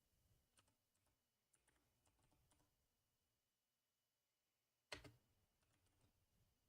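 Near silence broken by faint scattered clicks and taps, with one sharper click about five seconds in.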